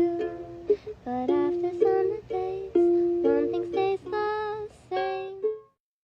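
Background music: a melody of short plucked-string notes. It stops abruptly near the end, leaving silence.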